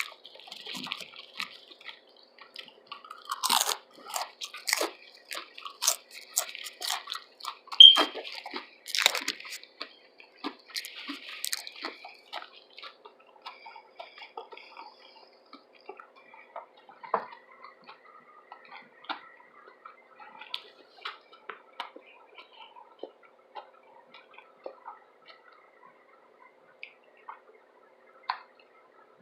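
Close-miked chewing of a tuna sub sandwich: wet, crackly bites and chews, busiest in the first twelve seconds, then slower, sparser mouth clicks.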